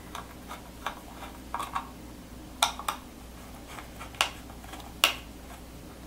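A handful of light, irregularly spaced clicks from a small screwdriver and screw being worked into a mounting hole of a 2.5-inch solid state drive's metal casing. The screw is not catching, which he takes for a possibly stripped thread in the drive's casing.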